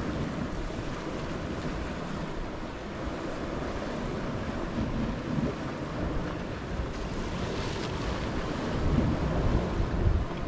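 Wind buffeting the microphone over the rush of sea surf breaking on a rocky shore, louder in gusts near the end.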